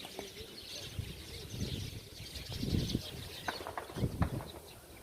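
Many small birds chirping and twittering without pause, a dense chatter of high calls, with a few low rumbling bumps close to the microphone around the middle.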